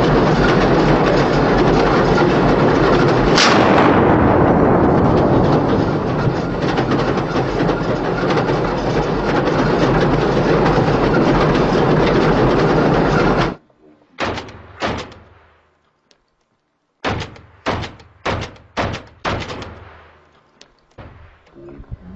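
Loud, dense continuous noise that cuts off abruptly, followed by single rifle shots with short echoes: two, a pause, then about six in quick succession.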